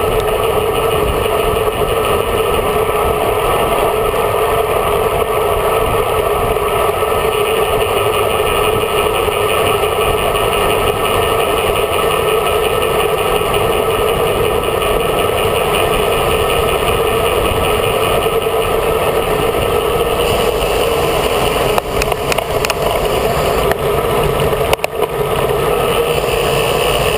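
Steady rush of wind buffeting a bike-mounted camera's microphone at riding speed, mixed with tyre and road noise. A few short clicks or knocks near the end.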